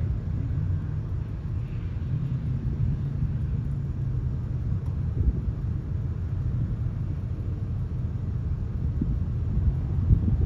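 Off-road side-by-sides climbing a sand and gravel hill, heard from afar as a steady low engine rumble that swells a little near the end.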